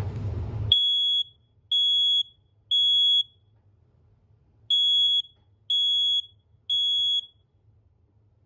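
First Alert smoke alarm sounding under test: a high-pitched beep in the three-beep temporal pattern, three beeps, a pause of about a second and a half, then three more. A short rushing noise comes just before the first beep.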